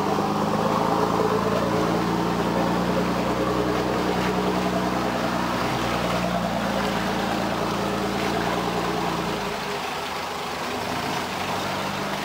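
Off-road buggy's Cummins diesel engine running steadily at low speed as it crawls through a muddy trail. About three-quarters of the way through, its deep low note drops away and the engine goes quieter.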